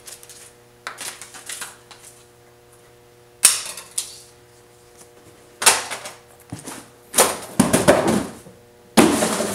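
A series of sharp knocks and clatters a second or two apart, each dying away within about half a second, with a busier run of clattering late on, over a steady hum.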